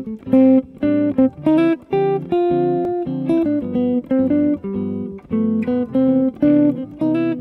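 Clean-toned semi-hollow electric guitar improvising a jazz line of quick plucked single notes mixed with a few chords. It plays D minor ideas over a B half-diminished (Bm7♭5) chord.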